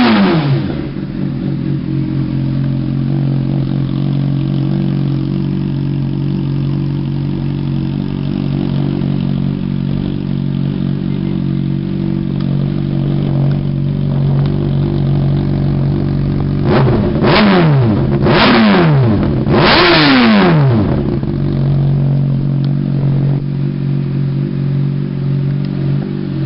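2009 Honda CBR600RR inline-four idling steadily through an aftermarket MBRP carbon-fibre exhaust. A rev dies back down to idle at the start, and about two-thirds of the way through the throttle is blipped three times in quick succession, each rev rising and falling straight back to idle.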